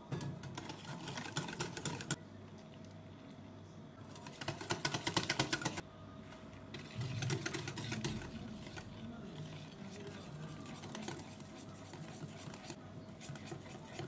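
Wire whisk beating a runny egg batter in a ceramic bowl: fast rattling clicks of the wires against the bowl in two bursts of about two seconds each, the second and louder one about four seconds in. After that, slower and quieter scattered ticks as flour is worked into the batter.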